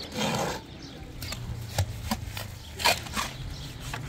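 Steel shovels scraping into a pile of sand and cement and tipping loads into a metal wheelbarrow. A long scrape comes at the start, then several short scrapes and knocks.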